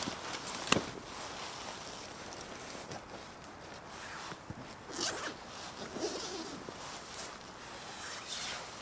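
A tent zipper being worked in short pulls, with a sharp click just under a second in.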